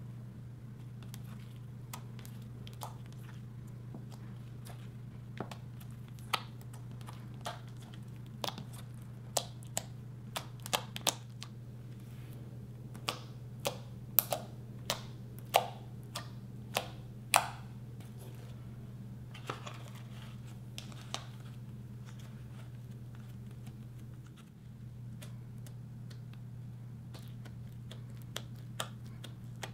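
Fingers pressing, poking and pulling at soft slime, giving irregular sharp sticky clicks and pops, thickest in the middle and again near the end. A steady low hum runs underneath.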